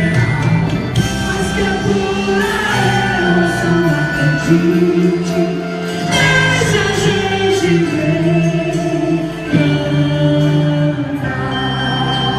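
Music with singing: sustained, choir-like vocal lines over instruments, playing continuously.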